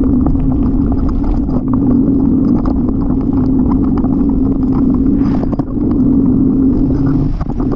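Ride noise from a camera carried on a moving bicycle: a steady rumble of tyres and wind with many small rattling clicks, dipping briefly twice in the second half.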